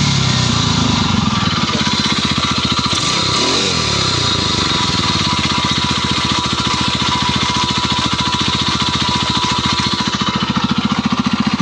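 Four-stroke engine of a Stels Kapitan running steadily with an even rapid pulse, briefly rising a little in pitch near the start and again about three seconds in. A light meshing, scraping noise remains, but the heavy anvil-like knock is gone after the RVS additive treatment.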